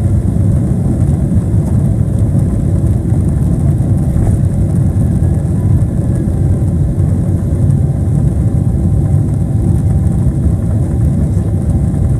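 Boeing 777-300ER's GE90 jet engines and runway rumble, heard from inside the cabin during the takeoff roll: a loud, steady, deep roar.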